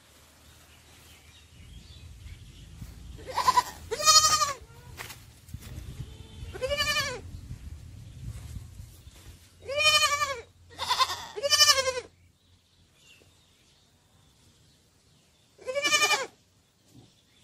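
Sheep bleating: about seven separate bleats, each rising and falling in pitch, in a loose cluster through the first twelve seconds and one more near the end.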